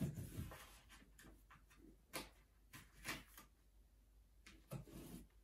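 Faint scattered handling noises: a few light knocks and clicks, spaced irregularly, over a low room hum.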